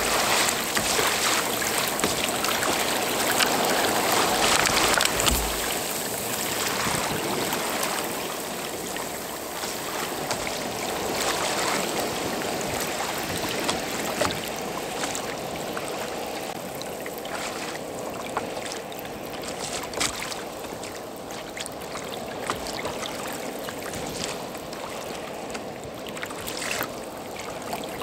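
Sea water splashing and rushing along the hull of a moving Hobie Outfitter kayak in choppy water, with scattered sharp splashes and ticks. It is louder for the first few seconds, then eases off.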